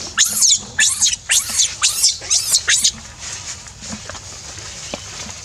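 Baby macaque screaming: a rapid run of about eight shrill, high-pitched cries in under three seconds, which then stops, leaving only faint scuffling with a few small clicks.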